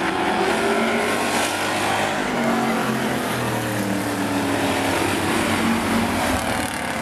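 Several demo race cars' engines running and revving around an oval track, their overlapping pitches rising and falling.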